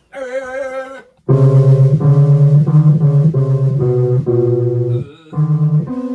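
Music: a short wavering note of about a second, then a brief gap and an instrument playing a run of held notes that change pitch about every half second.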